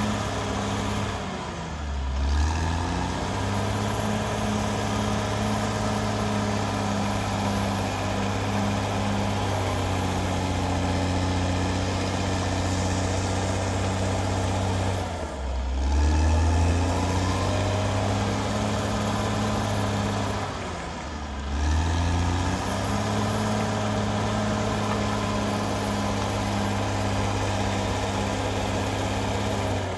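CAT D6R XL bulldozer's diesel engine running steadily under load while the dozer works soil with its blade. Three times, near 2 s, 15 s and 21 s, the engine note dips briefly and then climbs back up.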